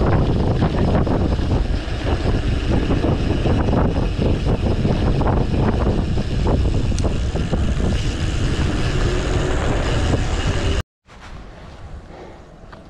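Wind buffeting a riding cyclist's camera microphone, with road rumble, as the bicycle rolls along a road. It cuts off abruptly near the end and gives way to a much quieter open-air background.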